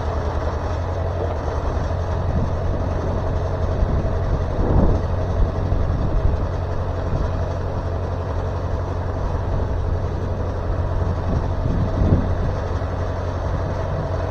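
Wood-Mizer LT40 Super Hydraulic sawmill's engine running steadily, with brief louder swells about five and twelve seconds in.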